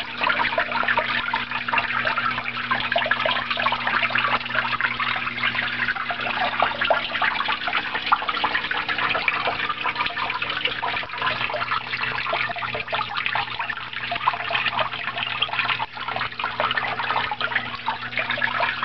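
Small pump-fed waterfalls in a rainforest terrarium, water splashing and trickling steadily into the pool below, with a steady low hum underneath.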